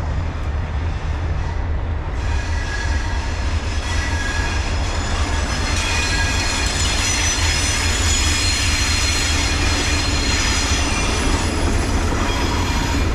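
Passenger train rolling past with a steady low rumble. From about two seconds in, its steel wheels squeal on the rails: many high, steady tones held together to the end.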